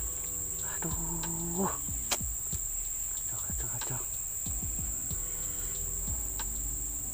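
Insects chirping in a steady, unbroken high-pitched drone.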